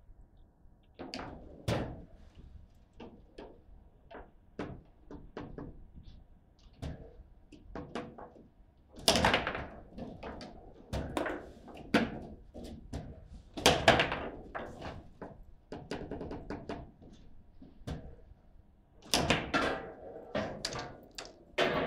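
Foosball ball in play, clacking and knocking off the plastic men, steel rods and table walls in irregular sharp hits. Louder strikes come about nine and fourteen seconds in, and a flurry of hard hits near the end as a goal goes in.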